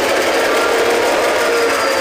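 GT22 diesel-electric locomotive's diesel engine running steadily, heard up close in the open engine compartment, with a faint high whine over the steady running.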